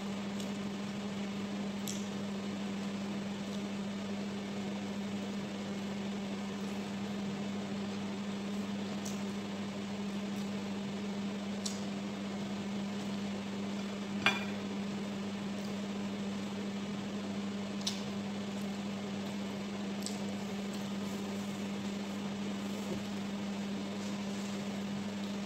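Steady low appliance hum throughout, with a few faint clicks of eating by hand from ceramic bowls and one sharper clink past the middle.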